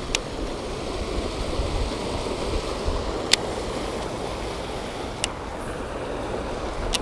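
Steady rush of river water tumbling over a rocky cascade, with four sharp clicks spaced a second or two apart.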